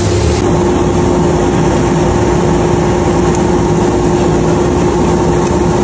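Sandblaster blasting a motorcycle wheel: a loud, steady hiss of air and grit with a constant hum underneath.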